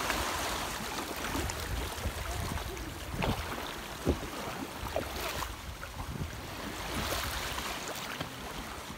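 Shallow seawater sloshing and splashing around the legs of children wading in the shallows, over the steady wash of small waves, with a few sharper splashes about three, four and five seconds in.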